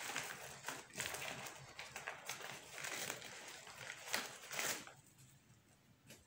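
Rustling and crinkling handling noise with several sharper crackles, stopping about five seconds in.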